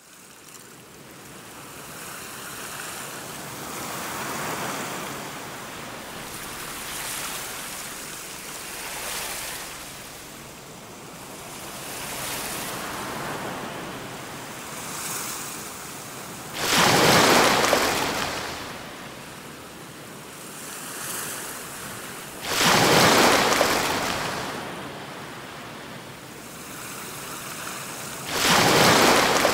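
Ocean surf: a rush of water that swells and fades every few seconds, then in the second half three heavy waves break with a sudden loud crash, about six seconds apart, each washing away over a second or two.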